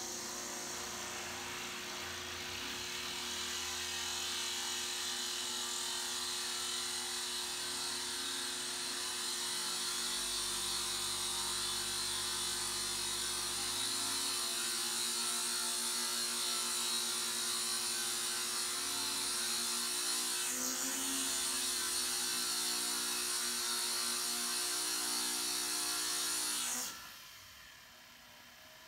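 Hanging flex-shaft rotary tool running steadily, its drill bit grinding into a pebble in a dish of water. The whine dips briefly about twenty seconds in, and the motor cuts off suddenly near the end. The bit seems to be dull.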